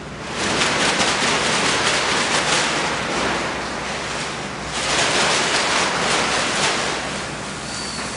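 A plastic sack being gripped and rummaged, rustling and crinkling in two long spells, with a brief lull about halfway through.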